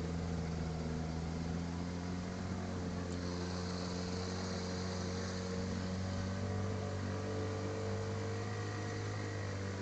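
Boat motor running steadily at an even pitch, a constant low hum with no change in speed.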